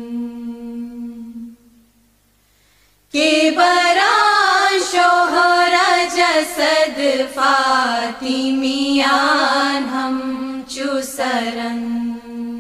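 A voice chanting a Farsi qasida, with no instruments. A long held note fades out about a second and a half in, and after a short pause the voice returns with ornamented phrases whose pitch bends up and down. A new long held note begins near the end.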